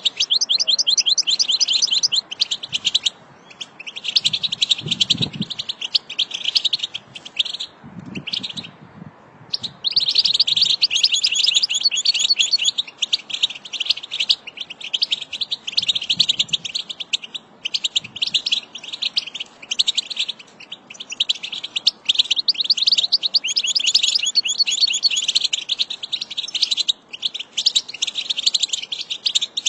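European goldfinch singing: a fast, nearly continuous run of high twittering and trilled notes, broken by short pauses about three and nine seconds in.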